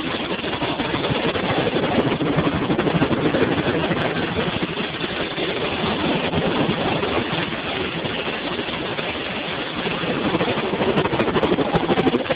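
Helicopter cabin noise: the steady engine and rotor noise heard from inside the cockpit, with no break.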